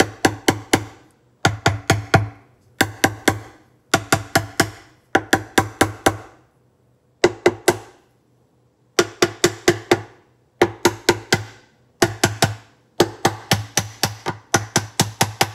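A mallet tapping the aluminium case half of a Can-Am Smart-Lock front differential down over its bearing, in quick runs of four to six ringing taps with short pauses between. The case is a snug fit on the bearing and is being seated a little at a time.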